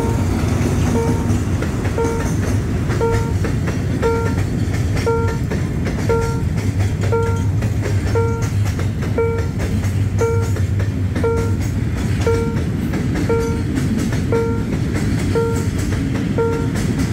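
A freight train of oil tank wagons rolls steadily past over the rails with a low rumble and wheel clatter. Over it, a level-crossing warning bell gives a short ringing tone about once a second.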